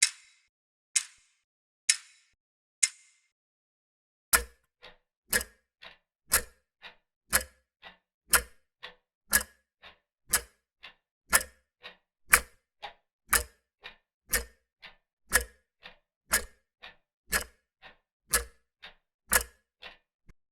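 Clock ticking: a thin, bright tick once a second that stops about three seconds in. After a short pause a second clock starts with a heavier tick-tock, two ticks a second, alternating loud and soft.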